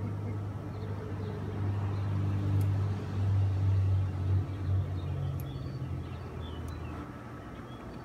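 A motor vehicle's engine hum swelling and then fading away as it passes, loudest three to four seconds in.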